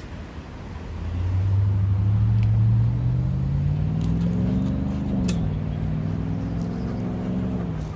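Motor vehicle engine running, its pitch rising steadily for a few seconds, then dropping sharply about halfway through, holding, and stepping down again near the end.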